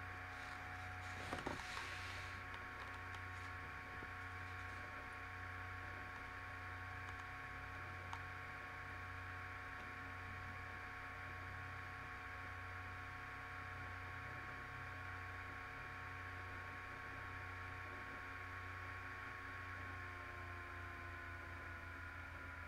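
Steady electrical hum with a few faint steady whining tones, one of which slides slightly lower near the end. A short cluster of clicks and rustle comes about a second in, and a single click near the middle.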